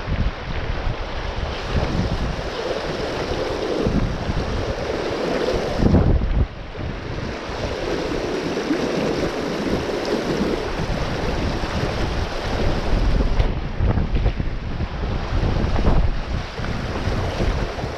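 Fast river current rushing and splashing, with wind buffeting the microphone in uneven gusts.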